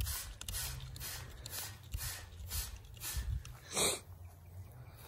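Trigger spray bottle squirting hydrogen peroxide onto corrugated galvanized roofing metal, a quick run of short hissing squirts about two a second, one louder near the end.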